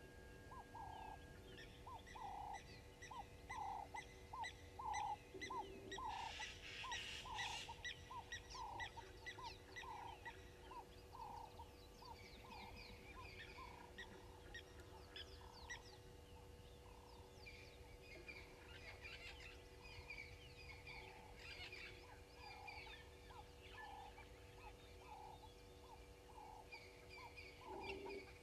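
Faint bush birdsong: one bird repeats a short note about twice a second throughout, over a chorus of thin, higher chirps from other birds. A brief rush of higher sound comes about six seconds in.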